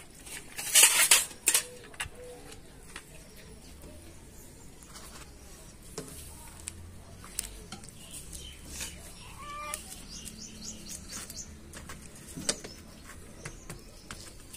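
Light clinks and knocks of steel bowls, plates and cups during a meal, with a brief loud rustle about a second in and a sharper knock about twelve and a half seconds in.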